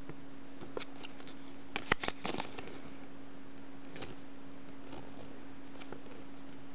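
Folded paper insert from a Furuta chocolate egg being handled and opened out: a cluster of crisp paper crackles about two seconds in, then a few lighter rustles, over a steady low hum.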